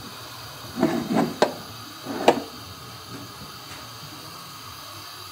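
A few short knocks and clicks of kitchen handling, the sharpest about two seconds in, over a steady hiss.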